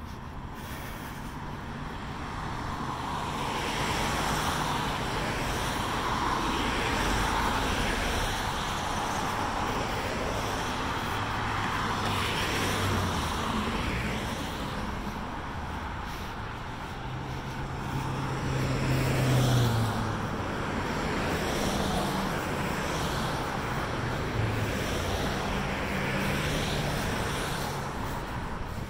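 Road traffic: cars driving past one after another, tyre noise and engine hum swelling and fading, with the loudest pass about twenty seconds in.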